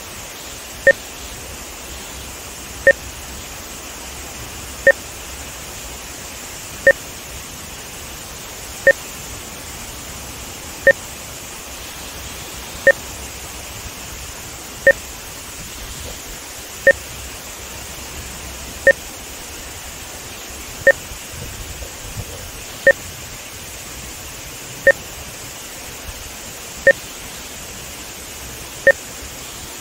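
Short electronic test beeps exactly every two seconds, each a low and a high pitch sounding together. They are the audio timing markers of a VideoMultimeter A/V sync measurement, heard over a steady rushing hiss of water pouring from a dam spillway.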